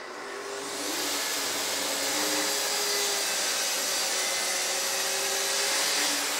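Festool plunge-cut track saw switched on together with its connected dust extractor. The motor spins up over about a second, then runs steadily with the extractor's hiss as the saw is pushed along its guide rail through a wood panel.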